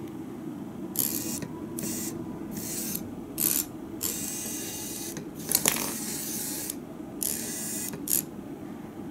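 Legomo mini robot's tiny gear motors whirring in about eight short bursts, starting and stopping sharply, as the robot drives and turns in spurts; the longest runs fall near the middle.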